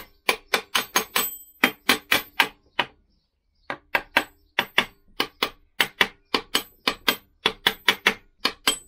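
Small hammer tapping lightly and quickly on a Lambretta gearbox end plate, about four taps a second with a short pause about three seconds in, some taps leaving a faint high ring. The plate is being knocked home to seat it on the engine casing.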